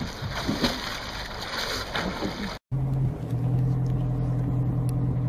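Seawater splashing and churning around a swimmer struggling with a large fish. After a sudden cut, a boat engine runs with a steady low hum.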